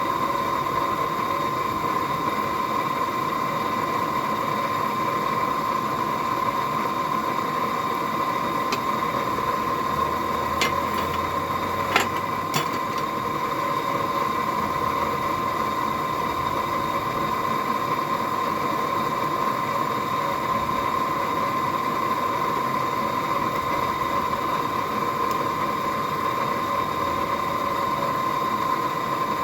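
Forge blower running steadily: a constant rushing noise with an even whine through it. A few light metallic clinks come near the middle.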